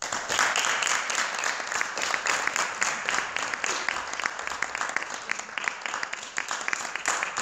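An audience applauding, many hands clapping at once, breaking out suddenly and keeping up steadily.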